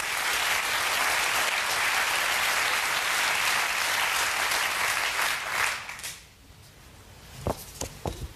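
Studio audience applauding, the clapping dying away about six seconds in. Near the end, a few short sharp knocks.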